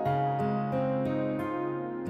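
Soft instrumental background music: a gentle melody of single notes, changing a few times a second.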